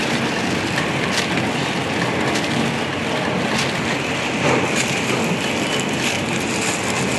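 Ice candy packing machine running, a steady dense clatter and hiss with occasional sharper clicks.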